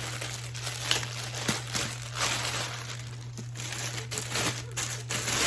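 Packaging crinkling and rustling irregularly as a handbag is unwrapped, over a steady low hum.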